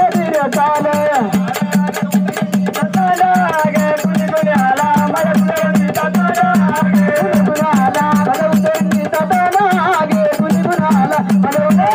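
Gondhal folk music: fast, steady drumming, the strokes in quick even succession, with a wavering melody line over it.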